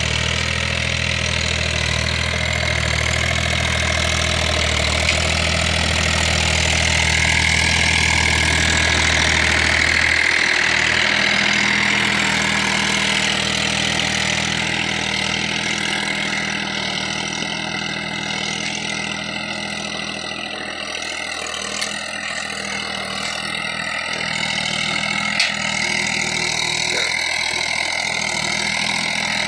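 John Deere compact tractor's diesel engine running steadily as it pulls a nine-tine cultivator through tilled soil; its low hum weakens about ten seconds in.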